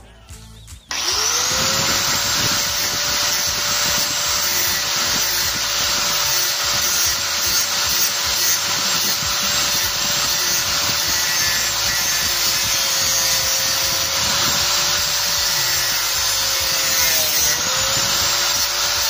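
Angle grinder spinning up about a second in, then cutting into the edge of a cracked cymbal to cut the crack out: a steady high whine over a harsh rasping hiss. The pitch dips briefly near the end as the disc bogs under load.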